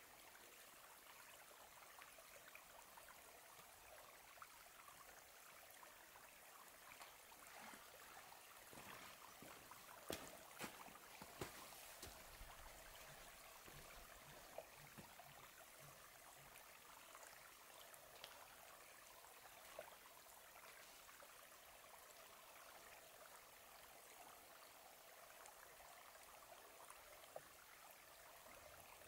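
Near silence: a faint steady outdoor hiss, with a few light knocks about ten to eleven seconds in.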